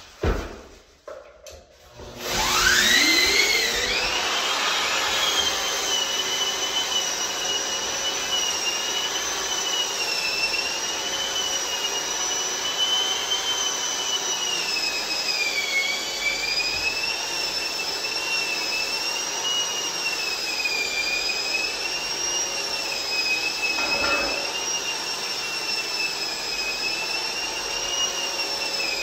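Bauer 9-inch electric drywall sander and the Festool dust extractor that switches on with it, starting up about two seconds in with a rising whine. Then both run steadily while the sanding disc works the ceiling, the pitch wavering slightly.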